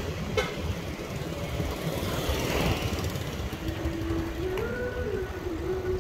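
Wind buffeting the microphone and road noise from a bicycle riding along a paved road, with a sharp click about half a second in and a faint wavering tone in the second half.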